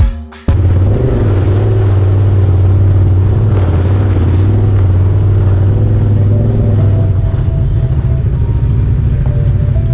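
Side-by-side UTV engine running steadily as the machine drives along a rough dirt trail, a loud low drone. A burst of drum-driven music cuts off about half a second in.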